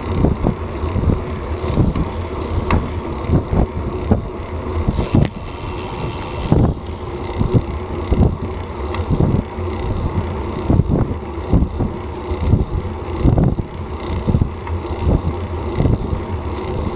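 Wind rushing over the action camera's microphone and tyre noise from a road bicycle riding at about 15 mph, broken by frequent short knocks and rattles as the bike goes over bumps in the road.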